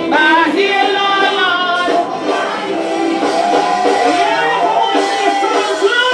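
Music with a singing voice over an instrumental backing.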